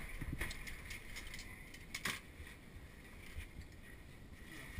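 Faint rustling and scraping with a few light knocks and clicks: a caving pack with metal carabiners clipped to it being pushed and shifted over rock in a tight crawlway.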